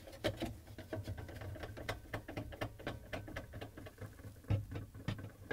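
Quarter-inch nut driver backing screws out of a refrigerator's sheet-metal panel: a quick, fairly even run of small clicks, several a second, over a low steady hum.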